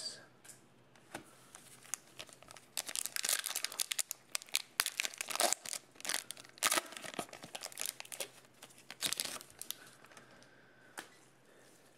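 Foil wrapper of a 2020 Donruss football trading-card pack crinkling and tearing as gloved hands open it, a dense run of crackles starting a couple of seconds in and tailing off near the end.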